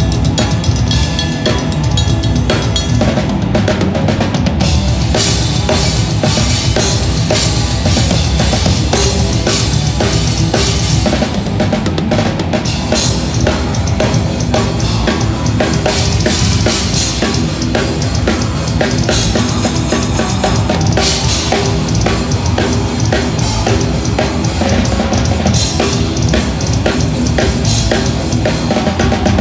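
Black metal band playing live, the drum kit loudest: fast, continuous drumming on kick drums, snare and cymbals, with no breaks, over the rest of the band.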